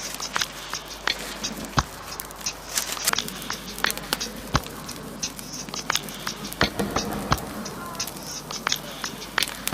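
Wood fire crackling for a grill, with irregular sharp pops and snaps over a steady hiss.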